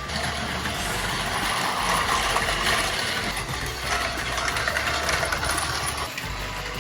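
Battery-powered Plarail toy train running on plastic track: a steady motor whir with wheel rattle.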